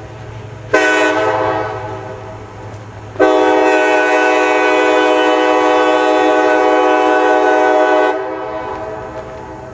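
Leslie K-5LAR24 five-chime locomotive air horn sounding a chord. A short blast comes under a second in and fades out, then a long blast of about five seconds.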